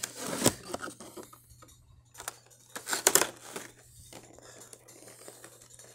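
Plastic packaging being handled: a clear plastic tray and cellophane wrap crinkling and rustling in short bursts, with a few sharp clicks.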